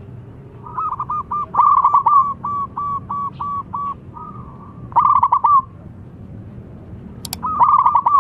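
Zebra dove (perkutut) cooing its calling song: rolling, trilled phrases with a run of short, evenly spaced coo notes between them, the rolling phrase coming again about five seconds in and near the end. A sharp click a little after seven seconds in.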